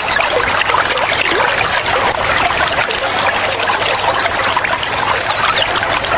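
Water trickling and gurgling steadily, with wild birds chirping over it. The birds sing quick runs of short high notes, one at the very start and another about three to four seconds in.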